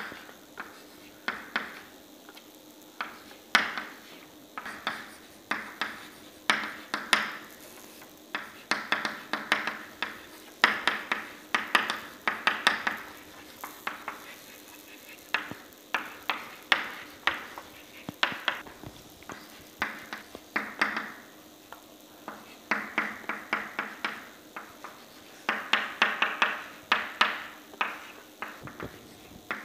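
Chalk writing on a blackboard: quick clusters of sharp taps and short scrapes as each letter and symbol is formed, coming in bursts with brief pauses between them.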